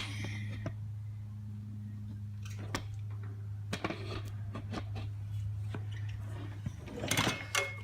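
Scattered light clicks and taps of small mower parts and tools being handled, with a sharp click at the start and a short cluster of clicks near the end, over a steady low electrical hum.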